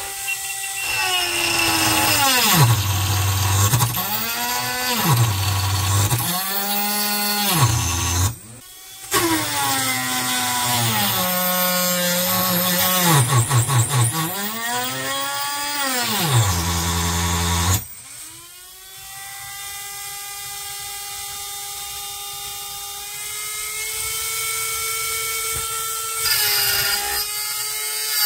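Small electric motors of an RC model excavator whining, their pitch dropping and climbing again over and over as they slow and speed up under the controls. The sound cuts off suddenly about 18 seconds in, then a steadier whine runs on.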